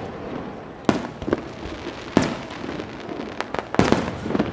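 Aerial firework shells bursting: a string of sharp booms, spaced roughly a second apart and coming in a quicker cluster near the end, with crackling between them.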